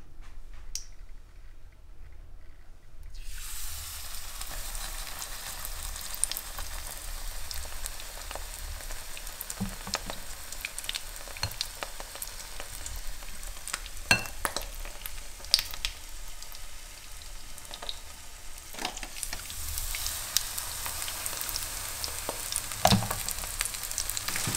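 Battered zucchini slices frying in hot oil and clarified butter in a nonstick pan. The sizzling starts about three seconds in as the first slice goes in, with scattered pops and crackles, and grows louder near the end once a second slice is frying.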